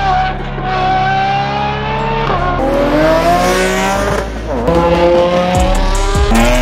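A car engine accelerating hard through the gears: the pitch climbs steadily and drops sharply at each upshift, about every two seconds, three times.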